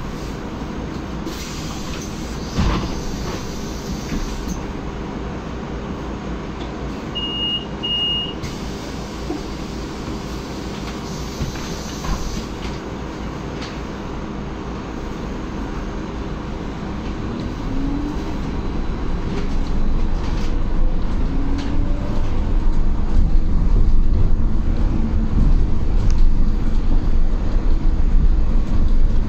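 Cabin of a Solaris Urbino 9 LE battery-electric bus: a steady low rumble with spells of hiss, and two short high beeps about seven to eight seconds in. In the second half the bus pulls away, the rumble grows louder and the electric drive gives a faint rising whine.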